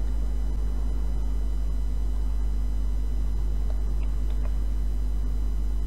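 Steady low electrical hum with a faint hiss under it, unchanged throughout, with a few faint clicks about four seconds in.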